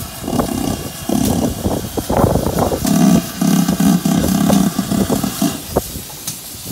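GWR 4200 class 2-8-0 tank steam locomotive working past at close range, its exhaust beating loudly and unevenly, the heaviest part in the middle.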